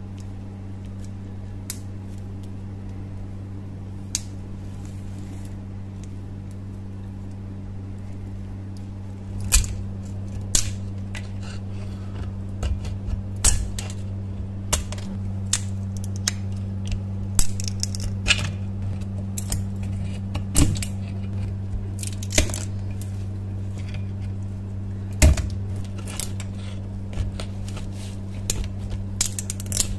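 Steel chisel scraping and chipping thick rust scale off an iron hammer head: irregular sharp scrapes and cracks that start about a third of the way in and come thicker toward the end, over a steady low hum.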